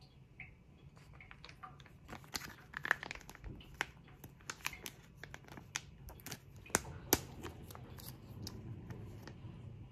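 Plastic sachet of chili oil crinkling and crackling as fingers grip and tear it open at the corner notch, in a run of sharp crackles with the loudest about three and seven seconds in.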